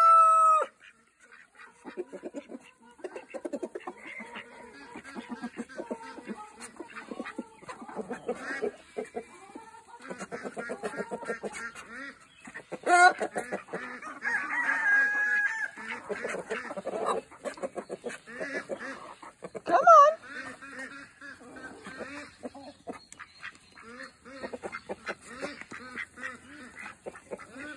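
A mixed flock of ducks and chickens feeding together: a dense patter of bills dabbling and pecking in feed, mixed with quacks and clucks. Two louder calls stand out, about 13 seconds in and again about 20 seconds in.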